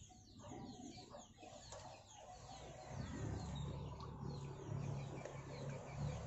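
Faint birds chirping in short, high, falling calls, with a low steady hum setting in about three seconds in.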